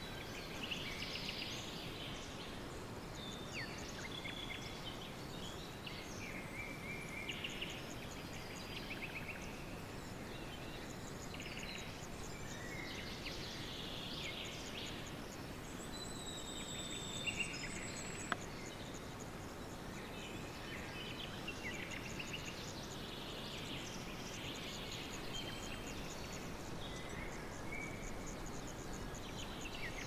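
Several small birds chirping and trilling at once, over a steady outdoor hiss; a thin high whistle holds for about a second and a half a little past halfway.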